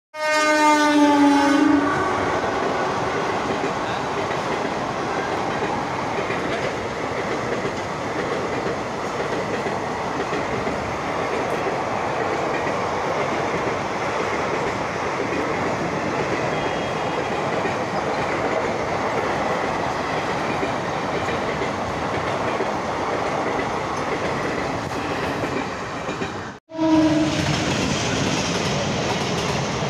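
A train horn sounds for about two seconds, then an Indian Railways passenger train runs past a level crossing with a steady rush and clatter of wheels on the rails. Near the end the sound cuts off abruptly, then a short second horn blast, and another train passes with the same rush of wheels.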